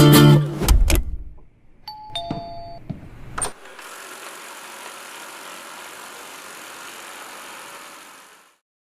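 A two-note ding-dong chime, high note then lower note, lasting about a second, after music fades out. A sharp click follows, then a steady faint hiss that stops near the end.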